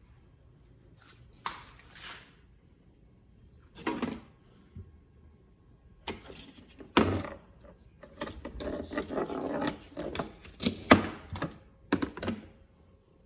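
Metal tool chest drawers being slid open and shut, with tools rattling inside: a series of sharp clunks, and a longer rattling run about eight seconds in.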